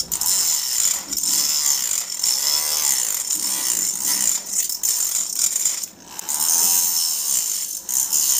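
Homemade mini angle grinder, a small DC motor spinning a thin cutting disc, cutting into a PVC sheet. A gritty high-pitched hiss, its pitch wavering as the disc bites, that eases off briefly about six seconds in.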